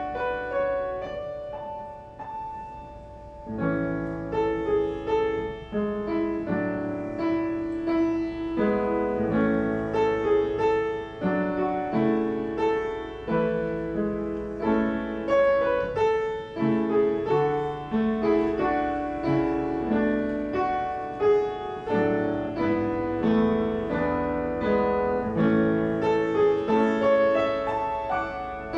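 Piano playing a slow instrumental piece in chords. It opens with a few quiet notes and fills out into fuller, louder chords about three and a half seconds in.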